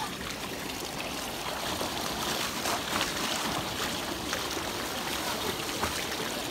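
Swimming-pool water splashing and churning as a swimmer kicks along the surface, a steady rush of water with scattered small splashes.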